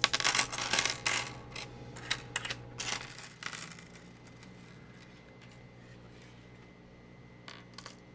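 Loose coins clinking as they are dropped and slid across a shop counter while being counted out: a flurry of clinks in the first three and a half seconds, then a few more near the end.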